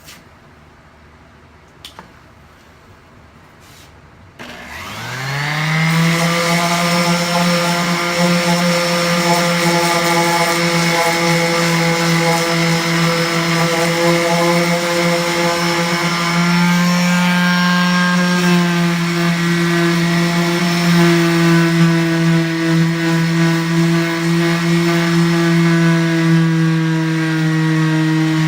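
A power tool's electric motor starts about four seconds in, winds up in pitch over a second or so, and then runs at a steady speed. Its tone shifts slightly a little past the middle.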